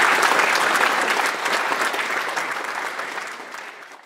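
Audience applauding, dense clapping that fades away over the last second or so.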